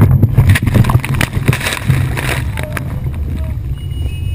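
Fountain 38 offshore powerboat at speed: a heavy low rumble under a loud rush of wind and spray, with repeated sharp knocks and slams as the hull pounds through a large wake and rolls violently. The rush and knocks ease off about two and a half seconds in.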